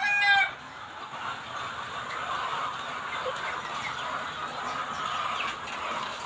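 A flock of caged kampung chickens clucking together in a steady, busy chorus. One loud, drawn-out call from a single bird ends about half a second in.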